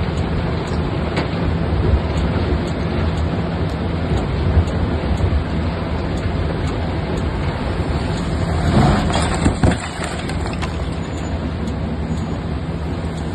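Heavy diesel machinery such as an excavator running steadily with a low drone. About nine seconds in, a louder burst of noise with a few sharp knocks stands out, likely from the machine handling scrap.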